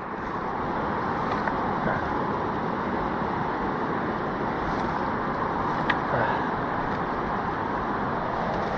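River water rushing steadily, with a faint click or two over it.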